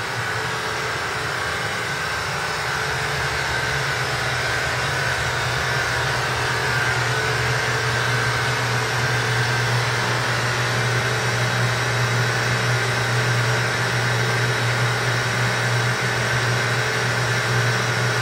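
Steady hiss of static from a radio tuned between stations, played as white noise, with a low steady hum underneath.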